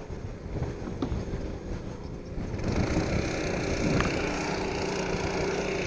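Snowmobile engine running steadily at low revs, with wind rushing on the microphone that grows louder about halfway through.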